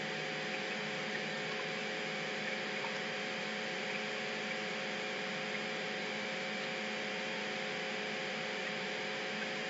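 Steady hiss with a faint electrical hum underneath, unchanging throughout: the background noise of the recording setup.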